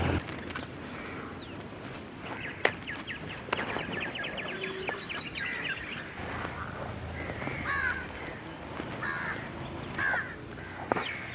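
Crows cawing, with other birds calling and a fast chattering run of notes about two seconds in. Two sharp knocks come about two and a half and three and a half seconds in, over a faint low rumble.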